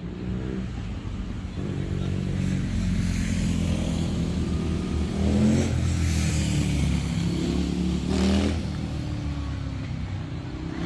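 Motor vehicles driving past on a city street, their engine note rising several times as they accelerate. The loudest passes come about five and a half and eight seconds in.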